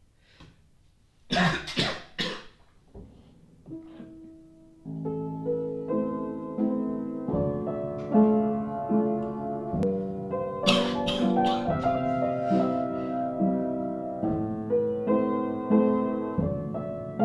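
A person coughing several times, then piano chords starting about five seconds in. Another fit of coughing breaks in over the piano about eleven seconds in.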